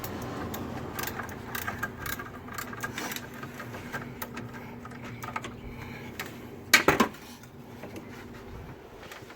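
Hand tools clicking and clinking on metal parts, irregular light taps, with one loud metallic clank about seven seconds in.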